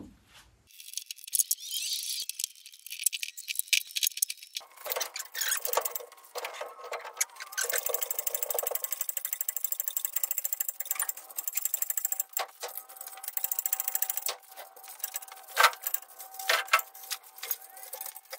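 Metallic clicking and rattling from an engine hoist and its lifting chain as an engine is hoisted out of a car's engine bay, thin-sounding with no low end. A fast, even run of clicks fills the middle stretch.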